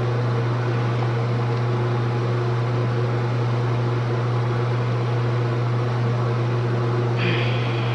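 Steady low mechanical hum at an even level, with a brief higher squeak about seven seconds in.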